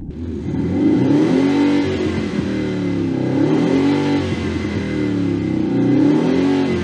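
THOR electronic active-exhaust loudspeaker on a BMW 320i playing its Mercedes-AMG S63 engine sound, loud, the synthetic engine note revved up and falling back several times with the car standing still.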